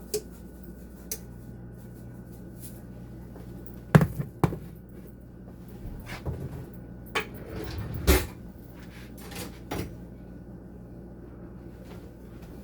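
A handful of sharp knocks and clacks from kitchen items being handled, the loudest about four seconds and eight seconds in, over a steady low hum.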